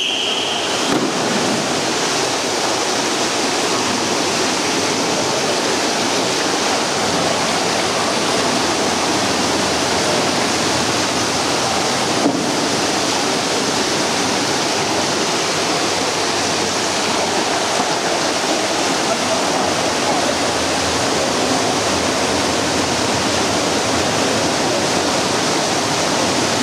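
Steady rushing noise of an indoor swimming pool hall: churning water and swimmers' splashing echoing off the tiled hall, even throughout. A short high steady tone sounds right at the start.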